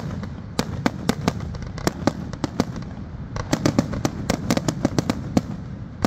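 Aerial fireworks bursting: a string of sharp bangs over a continuous low rumble, growing into a dense rapid barrage a little past the middle.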